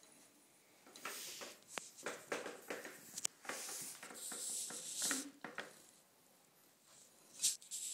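Faint patter and scuffing of a young komondor puppy's paws and claws on a tiled floor: a run of small clicks and scrapes, with a short louder rustle near the end.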